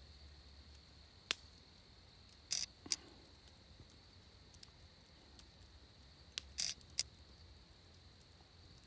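Quiet background with a faint steady high-pitched hum, broken by a few short sharp clicks: one about a second in, two close together near three seconds in, and a cluster of three a little before seven seconds in.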